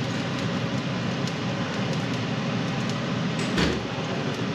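A steady rushing background noise in a kitchen, with faint clicks of a fork working in a glass mixing bowl, and a single dull thump about three and a half seconds in.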